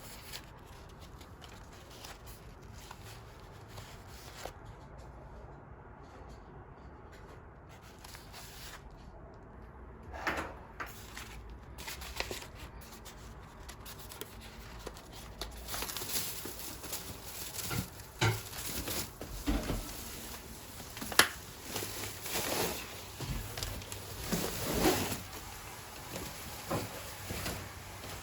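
Scattered light knocks, clicks and rustles of things being handled in a small room, sparse at first and busier in the second half.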